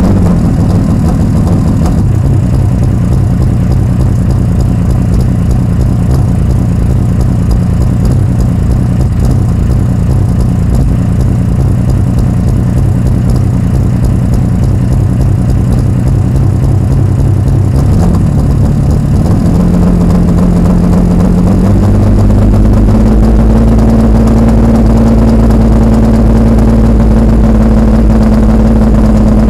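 Turbocharged BMW S50B32 3.2-litre inline-six in an E30 M3, idling loudly through its exhaust just after starting. The idle speed steps up about eighteen seconds in and again a few seconds later, then holds steady.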